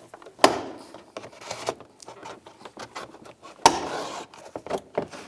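Plastic push-pin clips on a car's interior door trim panel being prised out with a trim tool, two sharp pops about half a second in and a little past three and a half seconds, with smaller clicks and scraping of the tool and plastic trim in between.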